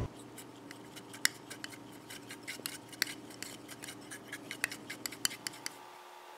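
Paint being stirred in a small clear plastic cup: quick, irregular clicks and taps as the brush knocks and scrapes against the cup's sides. The clicking stops about a second before the end.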